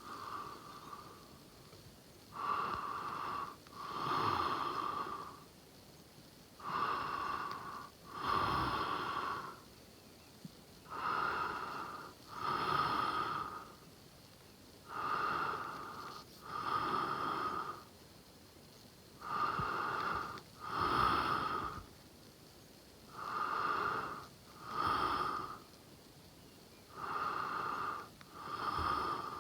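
A sleeping person snoring in a steady rhythm: two snores close together, about every four seconds.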